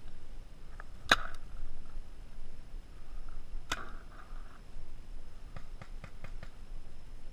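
Paintball marker shots: a sharp pop about a second in and another near four seconds, then a quick run of fainter clicks around six seconds in.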